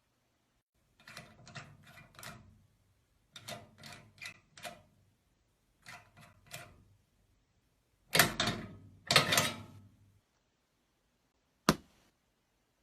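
Foley props struck and handled in quick clattering runs: four groups of rapid clicks and knocks, the last and loudest group about eight seconds in, then a single sharp click near the end.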